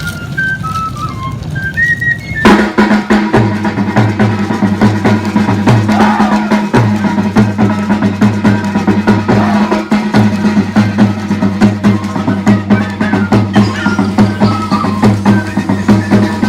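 Traditional Amazonian carnival dance music: a high, flute-like melody over a steady, quick drum beat. About 2.5 s in, a fuller, louder passage comes in with a held low drone under the drums.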